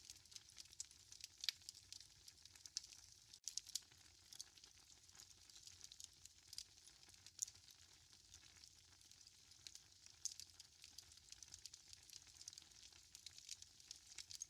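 Wood fire crackling in a fireplace: frequent irregular pops and snaps over a soft hiss, at low volume.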